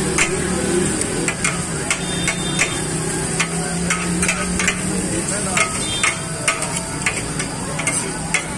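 Two metal spatulas clanking and scraping on a flat iron griddle as chopped chicken is turned and pushed into a pile, irregular sharp clinks a couple of times a second over a steady frying sizzle and a low hum.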